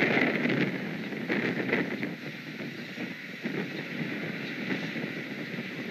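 Wind rushing over an outdoor nest-camera microphone, with quick clicking begging calls from heron chicks in the nest, strongest in the first two seconds.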